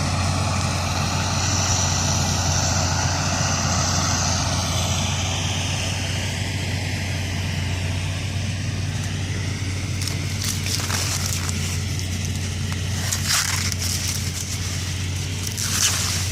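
Corn silage harvesting machinery running steadily: a low engine drone under a broad hiss of crop being chopped. A few short crackles come in from about ten seconds in.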